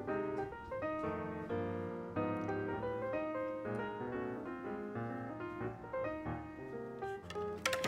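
Background piano music playing a melody of separate notes.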